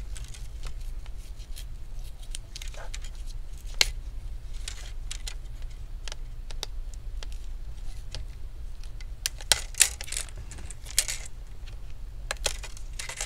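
Plastic laptop screen bezel being pried away from the display lid and peeled off its double-sided tape: scattered plastic clicks and snaps with short crackling stretches, the sharpest snaps about four seconds in and near ten seconds in. A steady low hum runs underneath.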